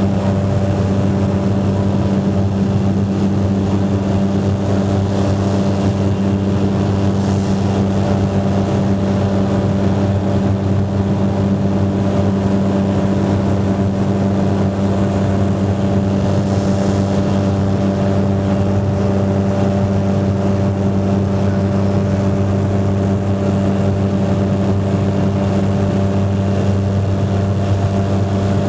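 Ski plane's propeller engine running steadily: a loud, even hum with a low tone that holds without change.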